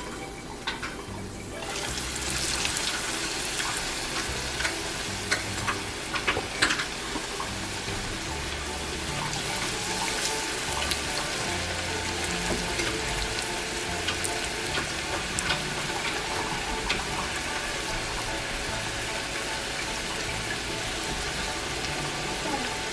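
Potato fries sizzling in hot oil, a steady hiss that grows louder about two seconds in, with a few clicks of a utensil stirring them during the first several seconds.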